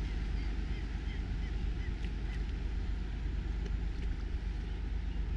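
A steady low rumble, with a run of short high bird chirps in the first two seconds.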